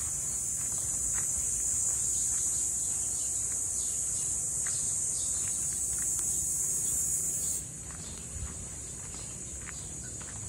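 Steady, high-pitched insect chorus that cuts off abruptly about three-quarters of the way through, leaving a fainter high hiss, with a few faint footsteps.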